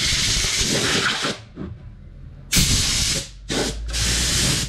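Hissing blasts from a spray nozzle blowing dust out of jackhammer parts: one long blast that cuts off about a second in, then after a short pause three quick blasts in a row, the last the longest.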